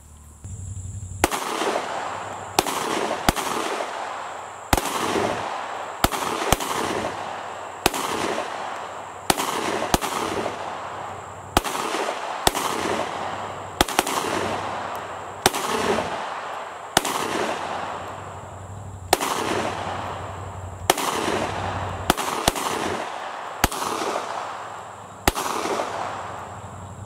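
Rapid pistol fire from Glock 23 handguns in .40 S&W: about twenty sharp shots at uneven spacing of roughly one a second, each followed by a long rolling echo.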